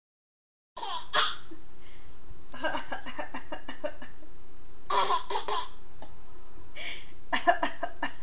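A woman coughing in several short fits, with a baby laughing in between.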